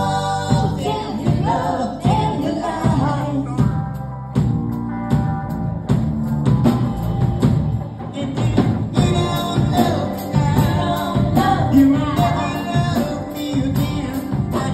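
A live rock band playing a song with a singer: drum kit with a steady cymbal beat, electric guitar and lead vocals.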